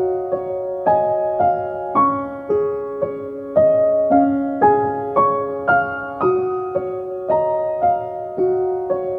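Background piano music: a slow melody of single notes struck about twice a second, each ringing on into the next.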